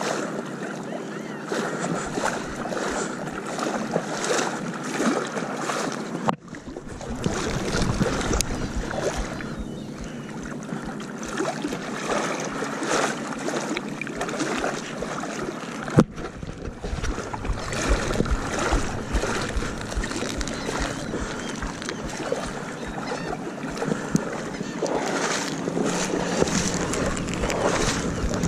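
Wind rushing over the microphone and water noise on a small boat under way; the sound breaks off abruptly twice, about 6 and 16 seconds in.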